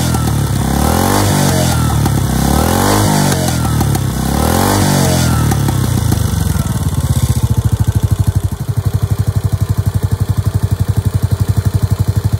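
Yamaha SR400's air-cooled single-cylinder four-stroke engine, heard through a megaphone slip-on silencer, is blipped several times with quick rises and falls in revs. About six seconds in it settles to idle, each exhaust beat separately heard.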